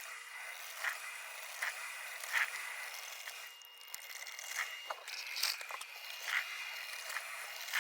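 Drip coffee maker brewing: short hissing, sputtering bursts roughly once a second over a faint steady high tone.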